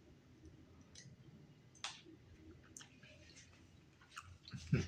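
Faint mouth and spoon clicks of someone eating chicken noodle soup: a few scattered soft clicks, then a louder cluster of clicks and a low thud near the end.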